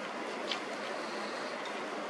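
Steady hiss of distant city traffic with no single vehicle standing out, and a brief sharp click about half a second in.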